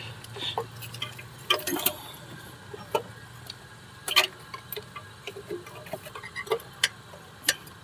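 Irregular light clicks and knocks of hand tools and metal engine parts being handled, with one sharper knock about four seconds in, as a stuck thermostat housing is worked at by hand.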